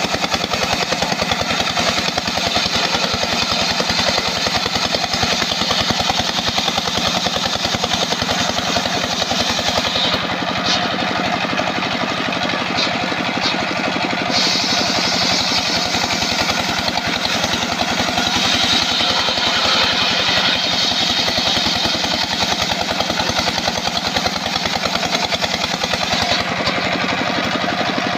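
Homemade circular sawmill ripping albasia (sengon) timber: the big saw blade hisses through the wood while the engine driving it by V-belts runs steadily underneath. The high cutting hiss eases for a few seconds about ten seconds in and again near the end.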